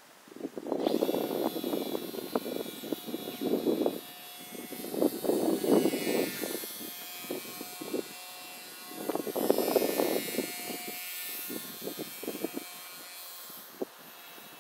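Small electric motor and propeller of a WLtoys F949 RC model plane whining as it flies, a high-pitched buzz that starts about half a second in and shifts in pitch as the plane moves. Loud irregular bursts of rushing noise come and go over it three or four times.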